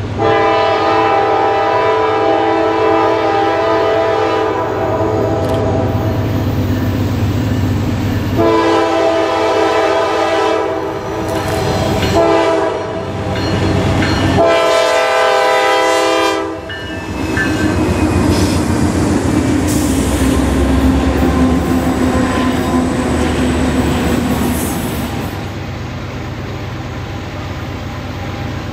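Diesel freight locomotive air horn blowing four blasts, the first about eight seconds long and the next three shorter, likely a grade-crossing signal. After that the locomotive's engines rumble past with wheels clacking on the rails.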